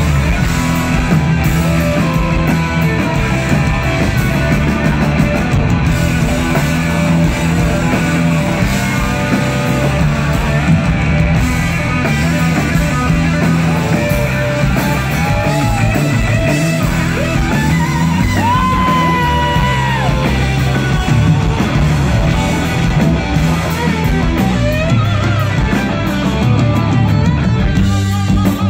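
Live pop-rock band playing: electric guitar, bass guitar and drum kit, with a male lead vocal singing over them, picked up on a phone from within the crowd.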